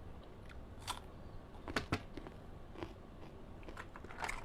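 Eating blood cockles close to the microphone: scattered sharp clicks and crunches of the shells and bites, two close together a little under two seconds in and a cluster near the end.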